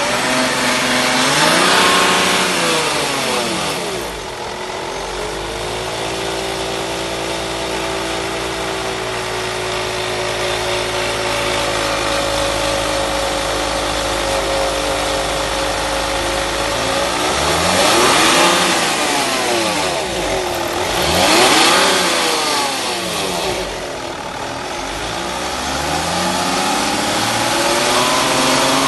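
Car engine idling and being revved: one rev near the start, a long steady idle, two quick revs a little past the middle, and a rise again near the end. An extraneous noise comes through with the rev about 18 seconds in, which the owner takes for a failing alternator.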